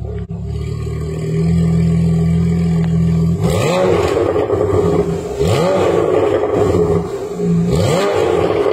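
Porsche 991.1 Carrera 4S's 3.8-litre flat-six running through a Fi Exhaust valvetronic system with catless headers and the exhaust valves open. It idles, grows louder about a second in, then is revved three times in quick throttle blips that rise and fall back to idle.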